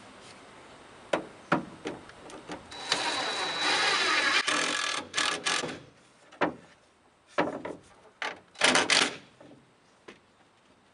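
Cordless drill running into a plywood panel fixed to the van's sheet-metal wall: one run of about two seconds with a steady high whine, then a few short trigger bursts. A couple of sharp knocks come before it and scattered knocks and handling clatter after.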